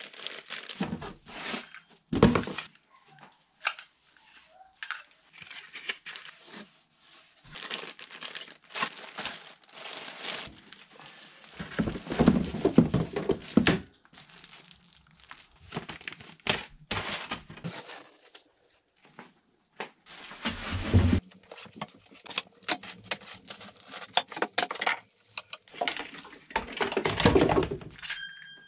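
Plastic bags and wrapping crinkling and rustling while a new brushcutter is unpacked, with knocks and clatter of parts being handled and set down on a wooden workbench.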